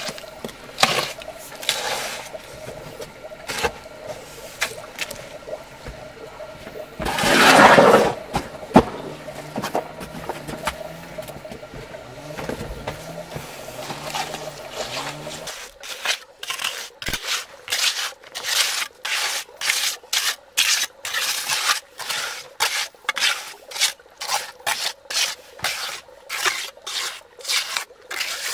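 Steel hoe scraping and dumping wet cement mortar onto a stone wall, with one long loud scrape about a third of the way in. About halfway through this gives way to a hand trowel spreading and smoothing mortar in quick, even scraping strokes, a few a second.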